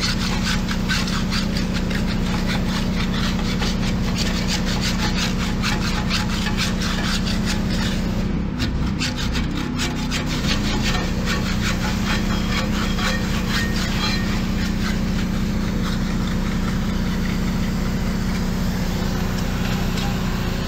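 Rapid, continuous scraping of barnacles off a boat propeller and prop nut, with a steady low hum underneath.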